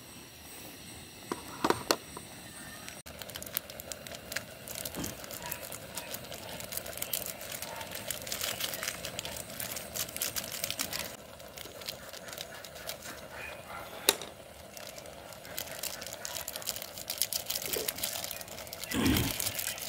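A wooden spatula briefly works the noodles in a metal camping pot. Then a foil masala sachet crinkles as it is handled and shaken over the noodles, with many small irregular crackles.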